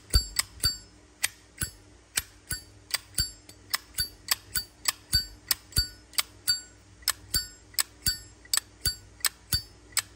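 Zippo lighter's hinged metal lid being flicked open and snapped shut over and over, a quick run of sharp, ringing metallic clicks at roughly three a second.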